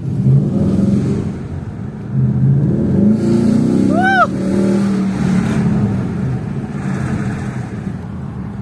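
Ford Mustang GT's 5.0 V8 engine heard from inside the cabin, pulling under throttle: it surges at the start and again about two seconds in, then settles as the car cruises. A short rising-and-falling tone sounds briefly about four seconds in.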